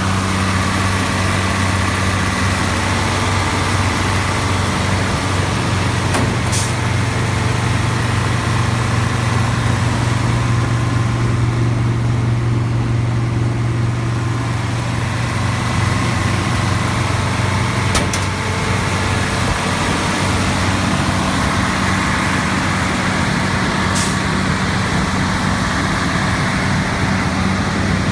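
New Holland TX68 combine harvester's six-cylinder engine running steadily, a loud low hum. The hum shifts in tone abruptly about 6, 18 and 24 seconds in.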